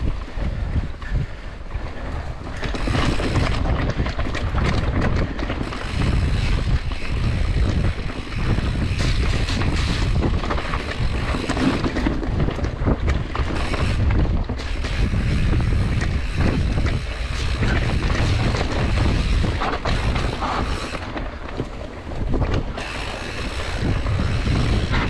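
Wind buffeting the microphone and tyres rumbling over a dirt trail as a mountain bike descends at speed, with the bike rattling over bumps; it gets louder after about two seconds.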